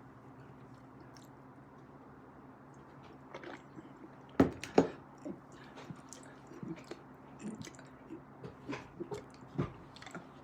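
Close-up open-mouthed chewing of soft food: wet smacks and clicks that start about three seconds in, the two loudest close together about four and a half seconds in, then a run of smaller ones.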